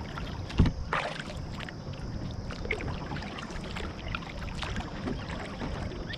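Kayak paddle strokes dipping and splashing in moving river water, with drips off the blades and a low knock about half a second in.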